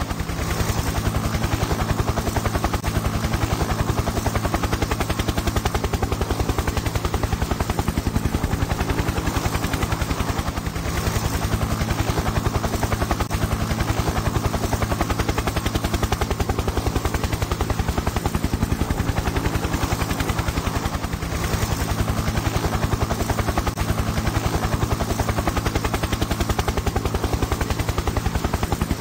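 Helicopter sound effect: a steady, rapid rotor chop over a constant engine drone, dipping briefly twice.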